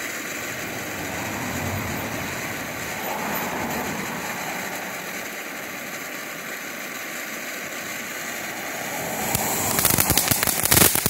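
Phantom Fire Fountain, a small consumer ground fountain firework, spraying sparks with a steady hiss. About nine and a half seconds in it changes to louder, rapid crackling as the spray turns to crackling gold sparks.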